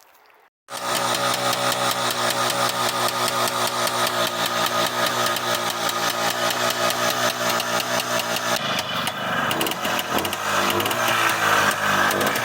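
Fantic 243 trials bike's two-stroke single-cylinder engine running at a steady idle. It comes in suddenly about a second in, and after about eight seconds the revs begin to rise and fall. The engine is still burning off the excess oil left in it after its crank seals were replaced.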